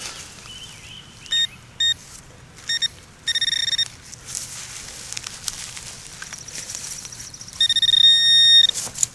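Metal detector beeping over a buried target: a few short electronic beeps, then a longer held tone near the end. It is the detector's low-tone signal, reading in the 60s, typical of aluminum trash.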